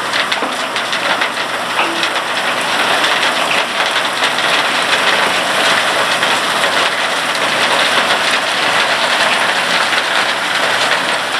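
SLK-GT200 gold wash plant running: a steady, rain-like hiss of water and material going through the machinery, with a fine, dense rattling.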